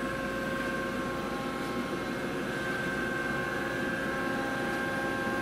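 Steady hum of a Mori Seiki TL-5A CNC lathe standing under power with its spindle stopped, several steady whining tones held over the drone.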